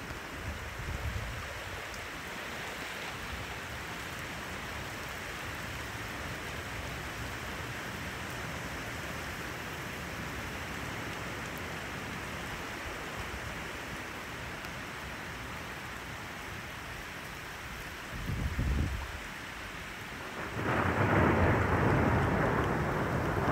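Steady rain of a thunderstorm. Near the end comes a short low rumble of thunder, then a sudden, much louder roll of thunder that lasts to the end.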